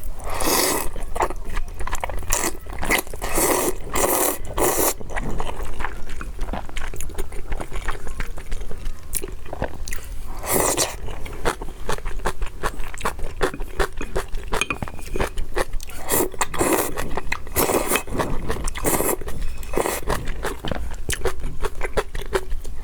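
Close-miked eating of zhajiangmian noodles: chewing with many short wet mouth clicks, broken by several longer noisy bursts of taking in and biting the noodles.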